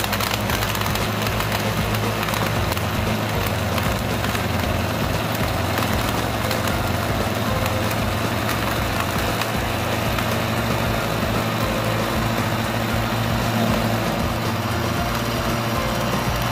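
Electric countertop blender running steadily at one speed, its motor hum under a constant whir, blending milk, banana and ice into a milkshake.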